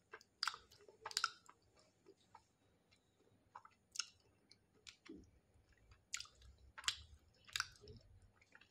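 A person chewing hard, oven-baked clay: faint, irregular crisp crunches and mouth clicks, with a quiet pause of about two seconds near the start.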